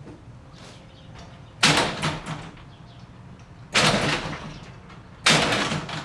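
Overhead garage door and its electric opener, three sudden loud rattling jolts about two seconds apart, each dying away within about half a second, as the door fails to close: a shadow across the safety electric eye keeps it from sensing the door.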